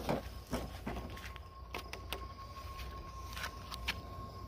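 Makita 18V X2 (36V) brushless cordless lawn mower running with a steady electric whine, mixed with short knocks and rustles, the loudest right at the start.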